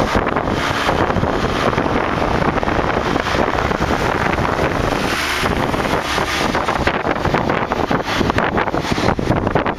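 Wind rushing over the microphone with road noise from a moving vehicle: a loud, steady rush with rapid buffeting.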